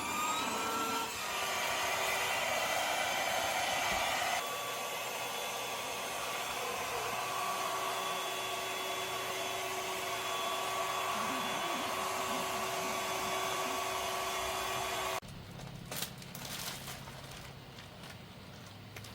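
A small electric blower motor spins up with a rising whine, runs steadily, and is switched off suddenly about 15 seconds in.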